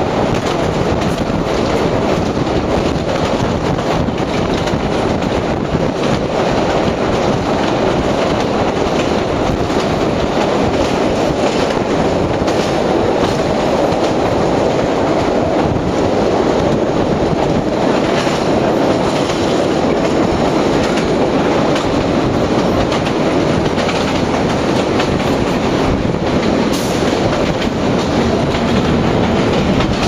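Vintage Lo-V subway car running along elevated track: a steady rumble with the wheels clattering on the rails, heard from an open car window as the train comes into a station.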